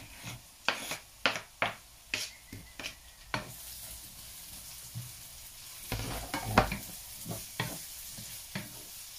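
Chopped onions scraped from a cutting board into a pan of hot oil and sautéed, sizzling, while a wooden spoon stirs them and knocks against the pan. Sharp knocks and scrapes come first; a steady sizzle builds from about three and a half seconds in, with more spoon knocks after it.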